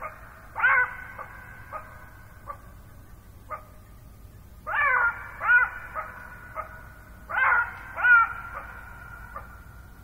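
A wild animal calling in three bouts, mostly pairs of short notes that each fall in pitch, with a few faint short ticks between the bouts.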